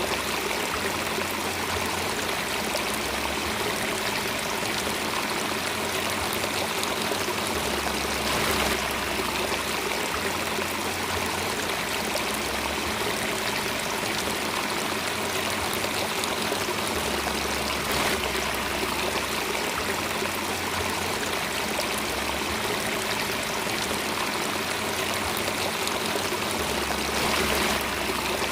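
Steady flowing water, like a running stream, with a low hum underneath that shifts in level every second or two.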